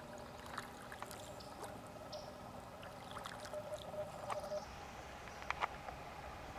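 Quiet water around a drifting canoe: soft lapping and dripping with scattered small knocks against the hull, and a few faint high chirps.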